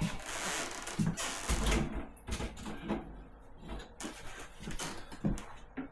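Irregular knocks, clicks and rustling of hand tools and a work light being handled and set down.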